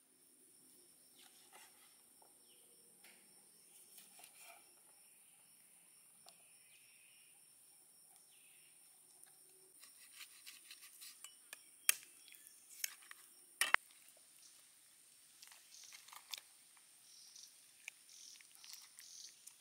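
Kitchen knife cutting through a raw whole chicken on a wooden cutting board, with soft cutting and tearing sounds. There are scattered small clicks, and two sharp knocks of the blade against the board about halfway through are the loudest sounds.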